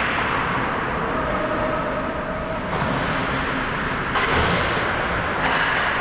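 Ice hockey play in an arena: skates scraping the ice over a steady echoing hall noise, with a couple of sharper stick or puck clacks about four and five and a half seconds in.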